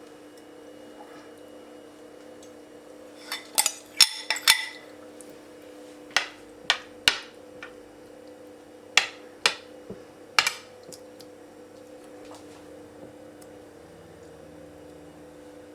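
Kitchenware being handled: about a dozen sharp knocks and clinks of utensils against a dish or board, in short clusters, over a steady low hum.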